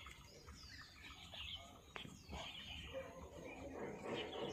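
Faint, short, high-pitched chirps, with a single sharp click about two seconds in.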